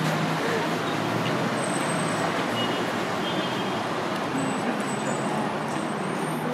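Steady city street noise: road traffic running along a wide avenue, an even wash of sound with no single vehicle standing out.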